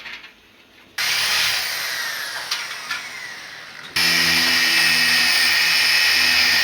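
Electric drill drilling into a wall. It starts suddenly about a second in and slowly fades, then from about four seconds in runs louder and steady, with a constant hum.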